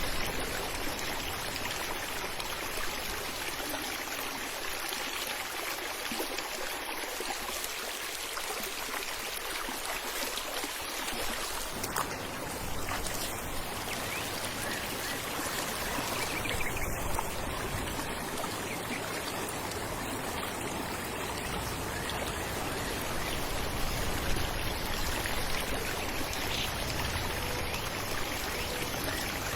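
Falling stream water running in a steady, even rush.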